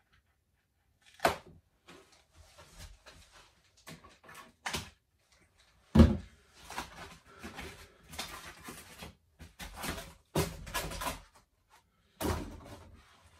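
Irregular knocks and clatter of an e-mountain bike being handled and set into a work stand, with one heavy thump about halfway through and a dense rattle of knocks a few seconds later.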